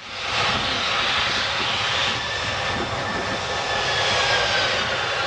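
The four Pratt & Whitney F117 turbofan engines of a C-17 Globemaster III running on the ground while the airlifter manoeuvres on the runway: a steady jet rumble and rush with a high turbine whine slowly falling in pitch. The sound fades in over the first half second.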